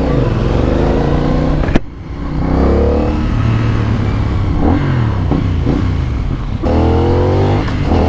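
CF Moto 450NK's 450 cc parallel-twin with 270-degree firing order, on the stock exhaust, pulling away and accelerating through the gears. The engine note rises in pitch, drops at the shifts and rises again. The sound breaks off abruptly twice, about two seconds in and near seven seconds.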